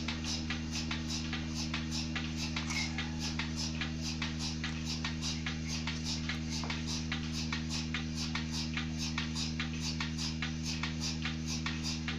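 Milking machine running: the pulsator ticks in a fast, even rhythm over the steady hum of the vacuum pump motor.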